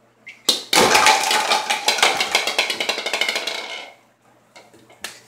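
A small ball rolling fast across a tiled floor. It starts with a sharp knock, then clatters in a rapid, even run of clicks that fades out after about three seconds.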